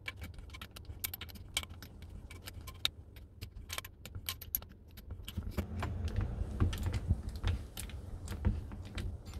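Light metallic clicks and clinks of a hand-turned brake piston rewind tool winding the piston back into a VAG rear brake caliper, with heavier handling noise in the second half.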